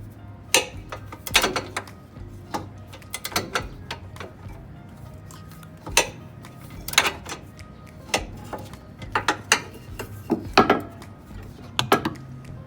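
Wrench and socket clicking and metal clinking in irregular clusters while a rear upper control arm bolt on a BMW E53 X5 is undone, over background music.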